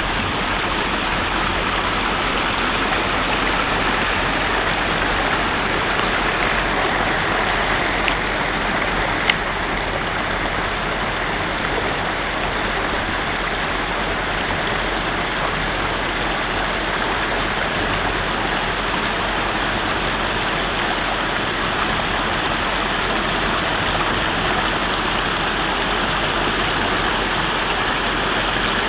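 Floodwater rushing through a road washout: a steady, even roar of moving water, with one sharp click about nine seconds in.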